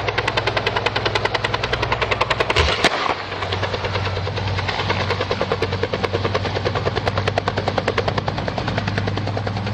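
Small two-bladed helicopter flying low and close: rapid, even rotor blade chop over a steady engine hum, with a short sharp noise about three seconds in.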